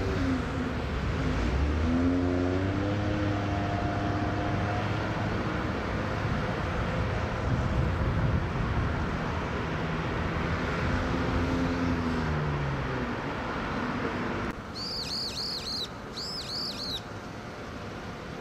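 A low engine hum whose pitch rises and falls, then after a cut a bird calls in two short phrases of repeated high, down-sweeping notes.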